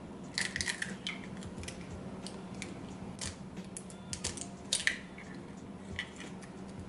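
Scattered light clicks and taps of bowls and kitchen utensils being handled on a counter, in a few small clusters, over a faint steady hum.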